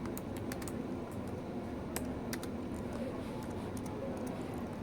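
One-handed typing on a MacBook Pro laptop keyboard: irregular key clicks in short bursts with pauses between them, over a steady low background hum.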